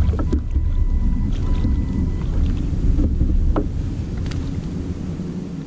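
Wind rumbling on the microphone and water lapping against a kayak hull, with a few light clicks and knocks of gear on the boat. A faint steady whine stops about two seconds in.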